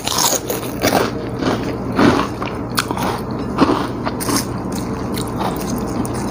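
Close-miked chewing of a mouthful of pecel rice eaten by hand, with irregular crunching from crumbled krupuk crackers.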